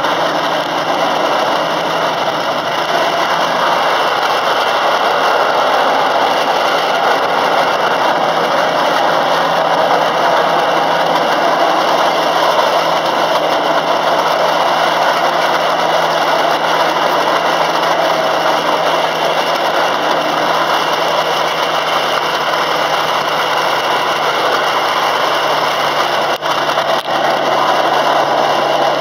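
Miniature railway train under way, its locomotive's engine running steadily with continuous running noise from the train.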